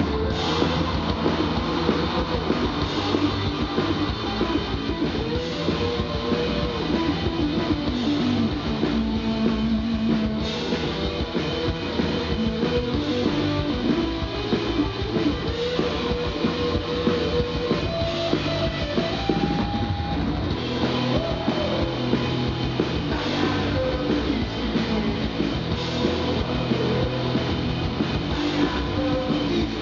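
Live punk rock band playing a full-band song with electric guitars and drums, loud and steady throughout.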